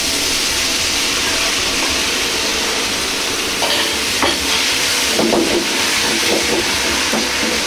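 Seasoning sauce of soy sauce, sake, oyster sauce and water hitting a hot wok and sizzling in a steady hiss as it boils off in steam. A metal ladle scrapes and knocks against the wok a few times in the second half as the ingredients are stirred.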